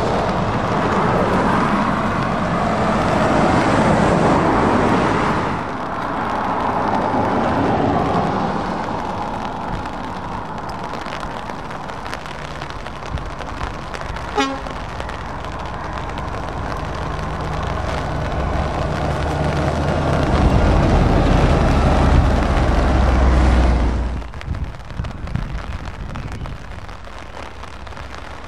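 Heavy lorries driving past one after another on a wet road, diesel engines running under tyre hiss: a Volvo FH tractor unit first, then a Scania 500S. A brief horn toot sounds about halfway through, and a deep engine rumble swells near the end as the Scania passes close, then drops away sharply to lighter van traffic.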